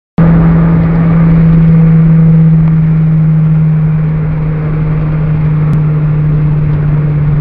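Honda Civic's engine running at steady revs while driving, heard inside the cabin as a loud, even drone that holds one pitch.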